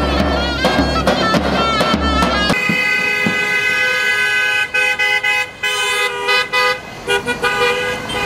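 Music led by a reedy, wavering wind instrument over a bass beat, which cuts off abruptly about two and a half seconds in. Then several car horns from the convoy honk together in long blasts with brief breaks.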